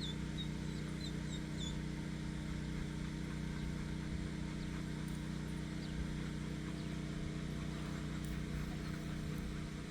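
Steady low hum of a running motor, with a few short, high bird chirps in the first two seconds.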